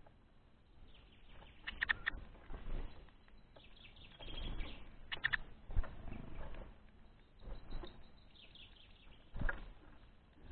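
Small birds giving a few short, high chirps, two or three at a time, among scattered soft knocks and rustles.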